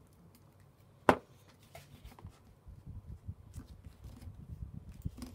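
A single sharp knock about a second in, as a plastic glue stick is set down upright on a table, then soft rustling and small clicks of folded printer paper being handled and folded.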